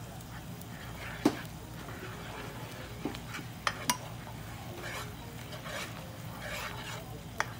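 A metal spoon stirring a simmering, roux-thickened lemon sauce in a nonstick skillet. The spoon clinks sharply against the pan about five times, loudest about a second in, over a steady low hum.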